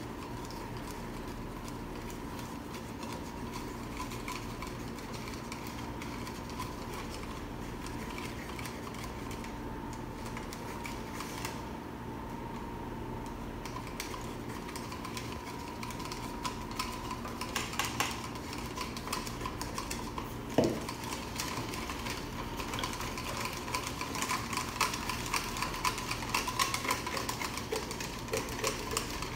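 Plastic spoons stirring and scraping in plastic cups of glue-and-water slime mixture, small quick clicks and scrapes that grow frequent about halfway through, over a steady hum.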